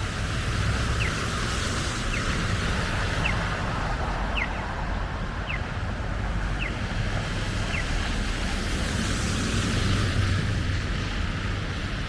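Steady city street noise during a snowstorm: a low rumble of passing vehicles and a wet hiss of tyres on the road. A short high chirp repeats about once a second, stopping after about eight seconds.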